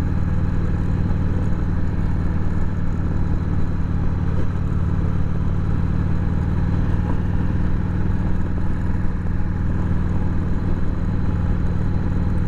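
Harley-Davidson Sportster's air-cooled V-twin engine running at a steady cruise, its note holding even, with steady road noise heard from the rider's seat.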